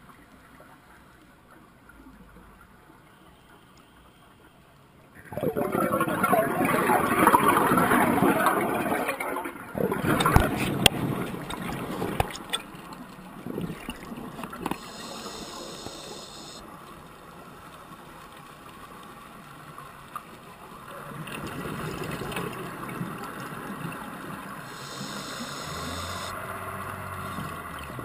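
Underwater bubbling of a scuba diver's exhaled breath venting from the regulator close to the microphone. There is a loud surge about five seconds in and a weaker one near the end, with a few sharp knocks on the camera housing in between.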